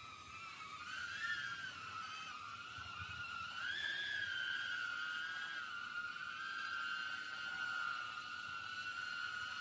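Small 3-inch quadcopter's brushless motors and propellers whining in flight, a steady high whine whose pitch wavers and rises briefly about a second in and again about four seconds in as the throttle changes.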